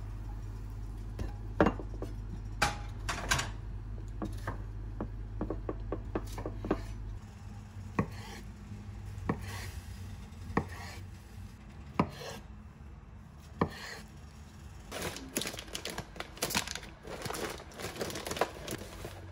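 Kitchen knife slicing through a tamagoyaki rolled omelette on a wooden cutting board: five cuts about a second and a half apart, each ending in a sharp knock on the board. It opens with a low hum and a few clatters of the pan against the plate, and plastic food packets rustle near the end.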